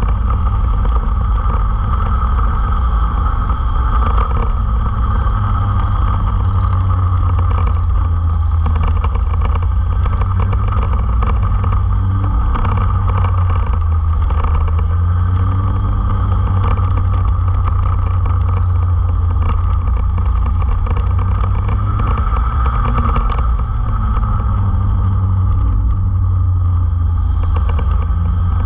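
Go-kart engines running at racing speed in a close pack, heard from onboard a kart, loud and steady, with the engine pitch rising and falling now and then through the corners.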